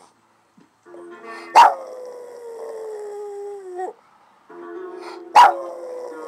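Boston terrier howling along to music: two long howls, each opening with a sharp, loud bark and then sliding slowly down in pitch, the first breaking off about four seconds in and the second starting about a second later.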